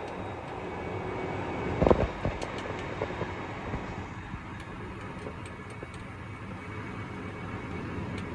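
Case IH Quadtrac 580 tractor running steadily under load while ploughing, with a single loud knock about two seconds in.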